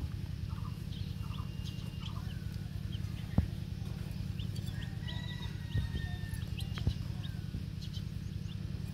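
Chicks peeping with short, high chirps over a steady low hum, with a few sharp taps, the loudest about a third of the way in.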